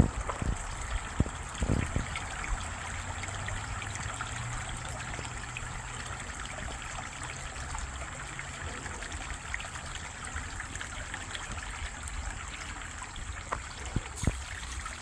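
Shallow creek water trickling steadily over rocks, with a few faint knocks about two seconds in.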